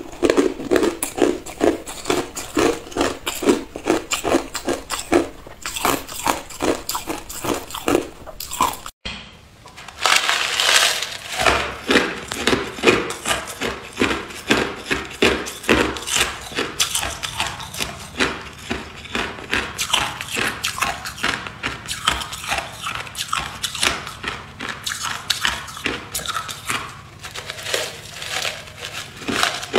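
Ice being bitten and chewed close to the microphone: a fast, continuous run of crisp crunches. The sound breaks off briefly about nine seconds in, then the crunching resumes.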